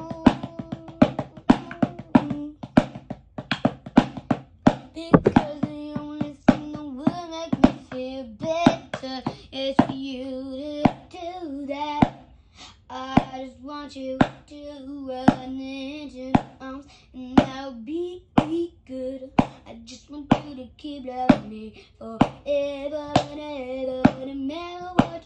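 A voice singing a wavering melody without clear words over a steady beat of hand slaps or claps, about two a second.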